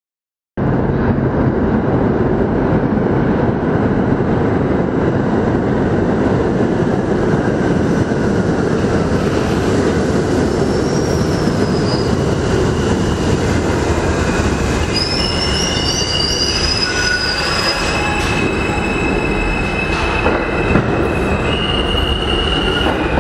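Metro train pulling into an underground station: a loud, steady rumble of wheels on rail, with high squealing joining in about halfway as the train slows to a stop.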